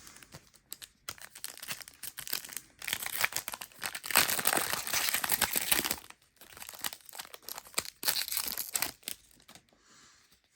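Crinkling and tearing of a trading-card pack's plastic wrapper as it is opened by hand. It is densest and loudest for a few seconds in the middle, then lighter and more scattered before it dies away.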